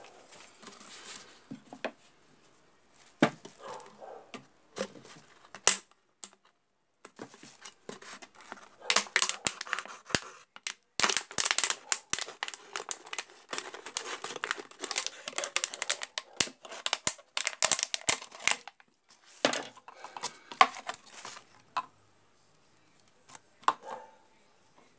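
Thin PET plastic bottle crinkling and crackling as it is handled and cut around with a knife, densest for about ten seconds in the middle, with scattered sharp clicks and taps before and after.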